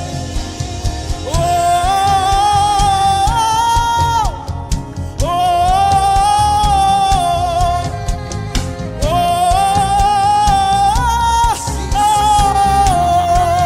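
Live gospel worship music: a voice sings long, held notes with vibrato in phrases of a few seconds, over steady band accompaniment with a low beat.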